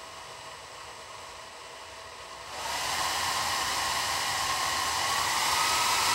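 A 3D-printed ducted fan driven by a brushless motor, throttled up from a servo tester: a steady rushing whine. It jumps louder about two and a half seconds in and then keeps climbing slowly in loudness and pitch.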